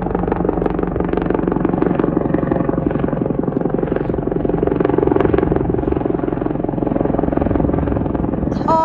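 Search and rescue helicopter flying low overhead: a rapid, steady rotor chop over the engine's hum, growing loudest about five seconds in.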